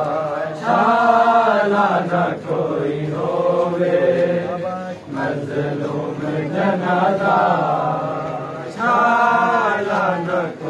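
A group of men chanting a noha, a Shia mourning lament, together in long sung phrases with short breaks between them.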